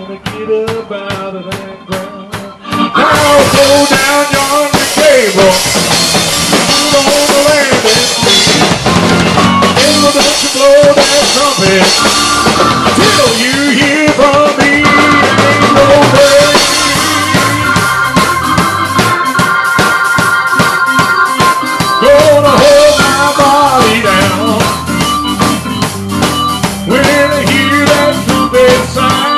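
Live praise band of drum kit and electric keyboard. A quieter passage of even ticks gives way about three seconds in to the full band playing loudly, the drum kit keeping a steady beat under keyboard chords.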